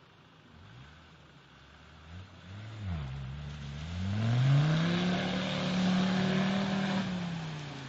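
Off-road 4x4's engine revving hard as it drives through a deep mud pool: the revs waver, climb about three seconds in, hold high, then fall away near the end. Water and mud splash loudly over the engine while it pushes through.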